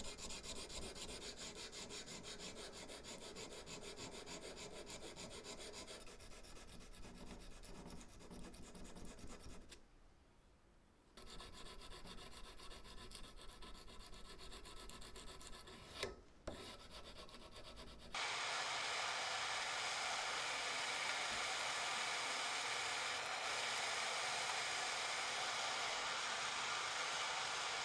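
Steel hand file scraping back and forth along a knife blade clamped in a filing jig, in quick repeated strokes. Then, about two-thirds of the way through, a handheld gas torch takes over with a steady, louder hiss as its flame heats the steel blade.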